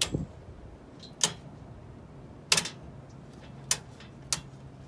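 Circuit breakers in a household breaker panel being snapped off one after another: about five sharp clicks, roughly a second apart.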